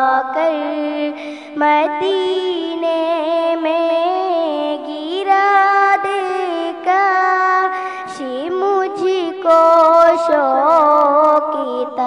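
A girl singing an Urdu naat solo into a handheld microphone, with long held notes and wavering, ornamented glides between them.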